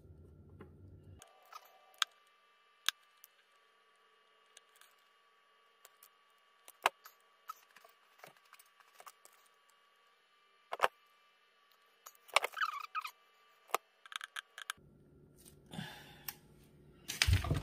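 Sharp, scattered clicks and snaps of a wire stripper working on thin low-voltage wires, with a cluster of clicks and rustling of wire handling about two-thirds of the way in and a louder knock near the end.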